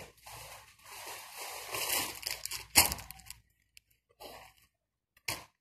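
Crispy fried chicken torn apart by hand, the crust crackling and rustling, with one sharp crack about three seconds in, then a few light clicks.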